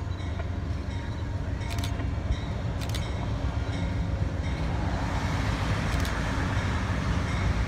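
Amtrak Pennsylvanian passenger train approaching behind its diesel locomotive: a steady low engine rumble that slowly grows louder, with wheel and rail noise swelling from about five seconds in. A few faint clicks sound over it.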